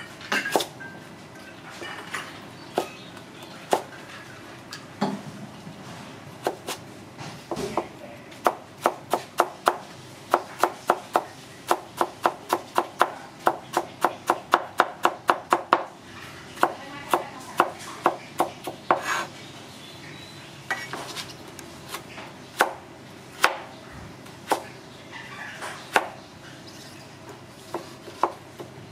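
Steel cleaver chopping carrots on a plastic cutting board. Scattered knocks at first, then a fast even run of about four chops a second for several seconds midway, then slower, occasional strokes.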